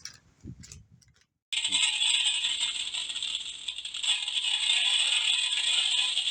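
A steady, dense rattling that cuts in abruptly about one and a half seconds in, after a moment of dead silence, and keeps going.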